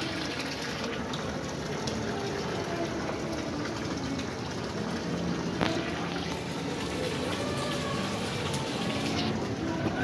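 Wall fountain running: a thin stream of water pours steadily from a lion-head spout and splashes into a tiled basin.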